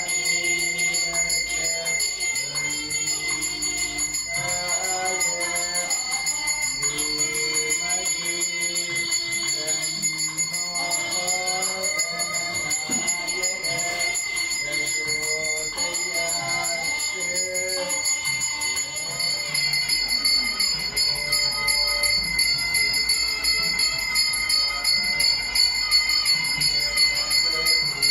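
A small temple bell rung without pause during an aarti lamp offering, a steady high ringing throughout. Voices sing a devotional chant over it for about the first two-thirds.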